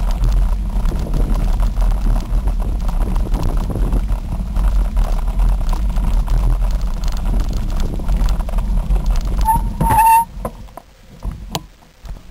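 Wind rumble on the microphone and tyre noise from a bicycle rolling along a dirt trail. About ten seconds in there is a brief high squeal, then the rumble drops away sharply to a quieter stretch with a few light clicks.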